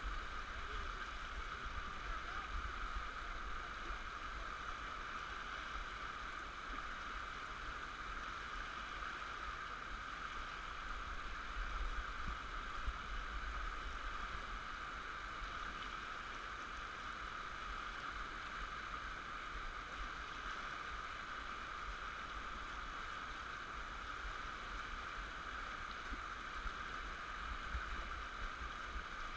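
Rushing whitewater of a river rapid around a canoe: a steady hiss with a low rumble underneath.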